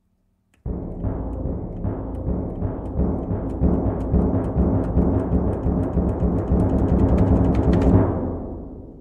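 Timpani roll with mallets. It starts suddenly just under a second in, swells steadily louder, then stops near the end and rings away.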